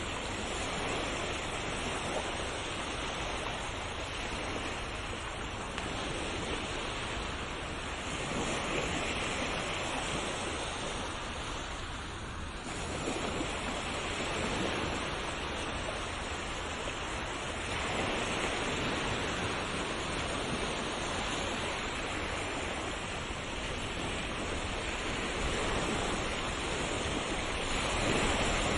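Ocean surf: a continuous wash of waves that swells and eases every few seconds.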